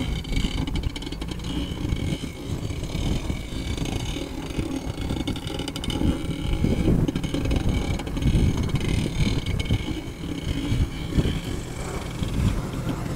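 A lifted Jeep Wrangler TJ's 4.0-litre inline-six engine running at low speed as the Jeep drives slowly over a dirt field.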